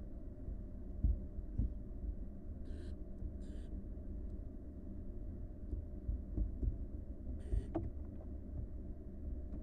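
Barn owl nestlings hissing in a nest box: two short hisses close together about three seconds in and another about seven and a half seconds in, over a steady low hum, with a few dull thumps as the chicks move about.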